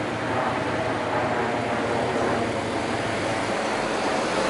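Steady noise of road traffic at a pedestrian and cycle crossing, with no beeping from the crossing signal.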